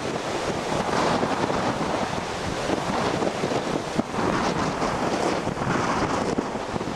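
Strong wind buffeting the microphone over the steady wash of heavy storm surf breaking on the shore and the breakwater.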